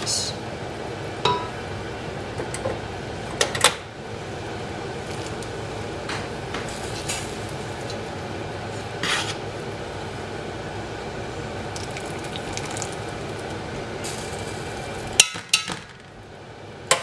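Metal strainer and spoon clinking and scraping against steel pots as par-boiled rice is scooped out of its water and spread over the chicken, with a steady background noise. A sharper clank comes near the end, and then the background drops away.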